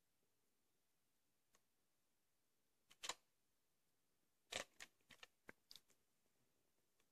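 Clicks and light knocks of a plastic VHS cassette being handled and turned over in the hand: a short cluster about three seconds in, then a quick run of clicks a second and a half later, against near silence.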